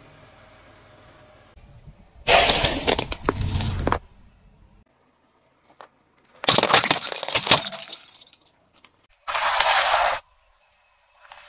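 A car tyre crushing brittle plastic and candy: three loud bursts of cracking and crunching, each one to two seconds long, as Rubik's cubes and a heap of candy-coated chocolates break under the wheel.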